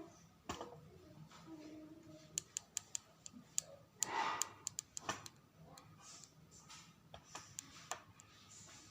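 A scatter of sharp light clicks and taps, bunched between about two and five seconds in, with a short rustle about four seconds in, over a faint steady hum.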